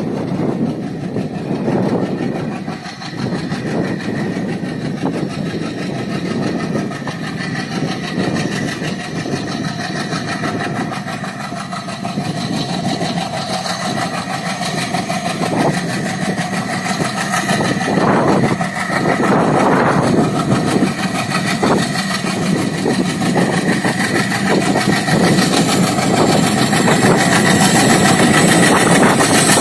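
ALCO diesel locomotive engine running as it hauls a double-stack container train toward the listener, growing steadily louder as it approaches.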